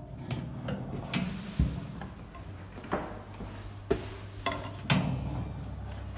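Light clicks and knocks, about seven spread over a few seconds, from an electric oven's metal racks, tray and glass door being handled, over a low steady hum.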